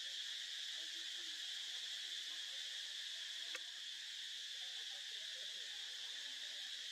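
A steady insect chorus, a continuous high-pitched buzz that does not change, with one faint click about halfway through.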